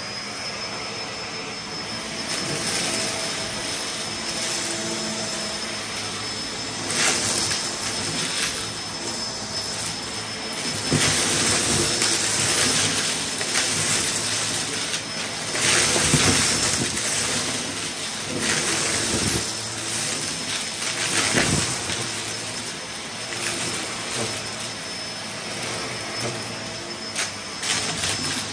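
Upright bagless vacuum cleaner switched on, its motor whine rising to a steady high pitch, then running as it sucks up a pile of confetti, sequins and small pieces off a rug, with louder rattling stretches as the debris is pulled in.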